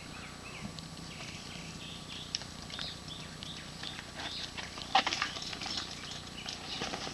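Ghost mountain bike coming down a rutted dirt trail: tyres crunching over loose ground, with scattered clicks and knocks of the frame and chain, a sharp knock about five seconds in, and the clatter growing louder as the bike draws near at the end.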